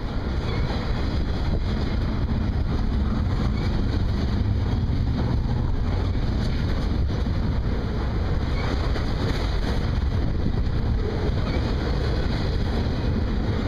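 Double-stack intermodal container train rolling past at close range: a steady rumble of steel wheels on rail from the loaded well cars.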